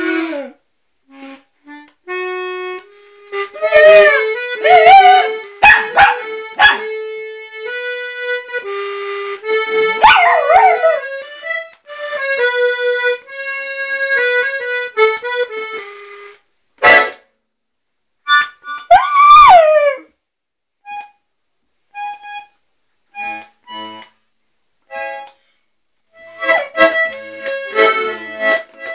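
A puppy howling along to an instrument playing long held notes. The howls come several times, each sliding up and then down in pitch, over and between the notes.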